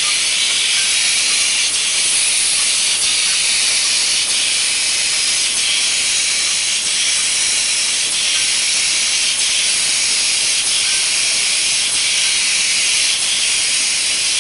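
Rotary glass-bottle filling and capping monoblock running, giving off a loud, steady hiss with faint ticks now and then.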